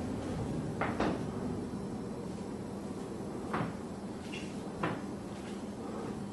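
A few sharp wooden knocks or clunks: a double knock about a second in, then two single knocks a few seconds later, over a steady low hum and hiss.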